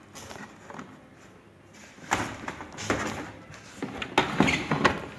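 Hard plastic clicks, knocks and rattles from the Epson L565's ink tank unit being unhooked and handled, in several clusters over the last three seconds.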